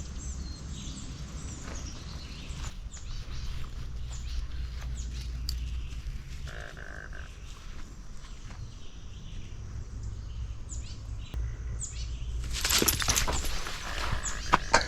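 Wild birds chirping in short, high, downward-sliding notes over a low rumble, with a louder rustling burst about two-thirds of the way through and a couple of sharp clicks near the end.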